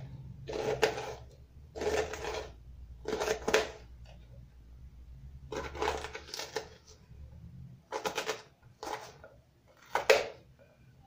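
Kitchen knife cutting a raw white onion into small dice on a plastic cutting board: about nine separate crisp cuts at irregular intervals, each a short crunch through the onion ending on the board.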